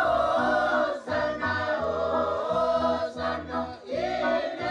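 A choir of several voices singing together in held phrases, with short breaks between them.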